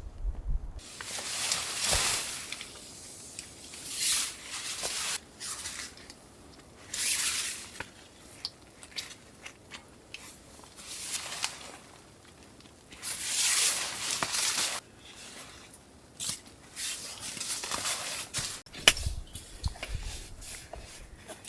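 Bursts of rustling and crunching, each about a second long, repeated at irregular intervals with scattered clicks and small knocks in between.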